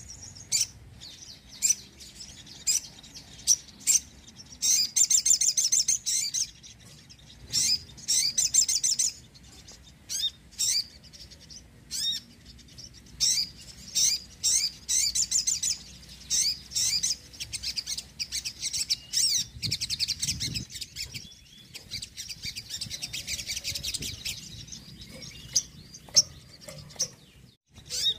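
Crimson sunbird (sogon) singing: sharp, high-pitched chirps mixed with rapid trilled runs of a second or two.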